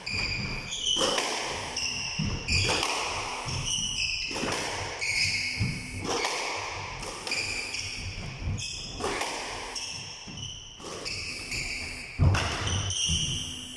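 Squash rally: the ball smacks off rackets and the court walls about once a second, each hit echoing in the enclosed court. Short high squeaks come between the hits.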